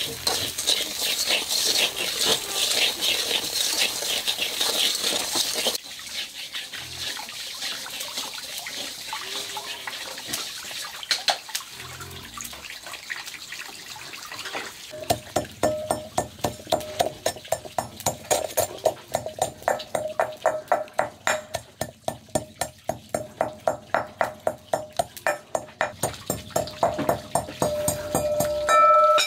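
Coarse salt being stirred with wooden chopsticks as it roasts in a metal wok: a dense scratchy hiss of grains scraping. After a quieter stretch, a steady run of sharp knocks about two to three a second fills the second half.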